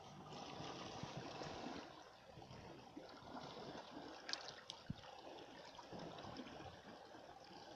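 Faint shallow water lapping and trickling over rocks, with a couple of small clicks a little past halfway.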